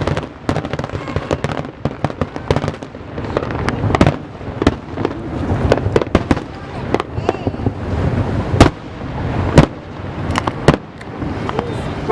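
Aerial fireworks display going off: a dense string of bangs and crackling, with two louder booms near the end.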